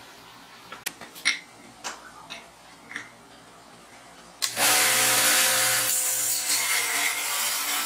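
A few light clicks and taps. Then, about four and a half seconds in, a homemade mini belt sander driven by a 1/2 hp water-pump motor comes in suddenly and loudly: a steady motor hum under the hiss of a metal piece being ground on the sanding belt.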